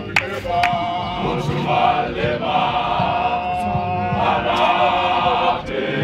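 Male group of Zion Christian Church mokhukhu members chanting in unison, holding one long note from about a second in until near the end, with a few sharp hits.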